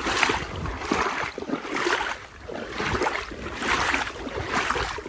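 Legs wading through knee-deep floodwater, a sloshing swish with each stride about once a second, with wind rumbling on the microphone.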